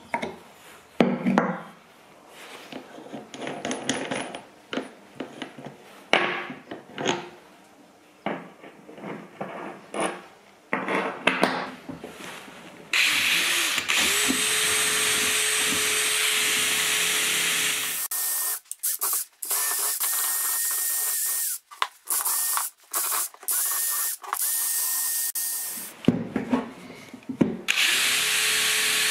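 Scattered knocks and clicks of parts being handled. About halfway through, a power tool starts running steadily in spells of several seconds, stopping and starting again a few times.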